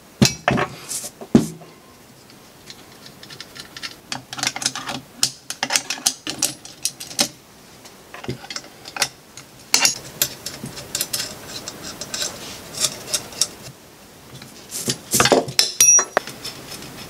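Metal clicks and clinks of an offset ring spanner working the turbine-housing bolts of a turbocharger as they are loosened and taken out, coming in irregular clusters.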